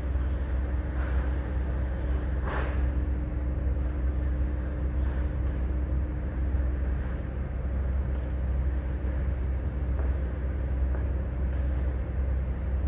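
Heavy diesel construction machinery running steadily with a deep, continuous rumble and a steady hum. There is a short rushing sound about two and a half seconds in.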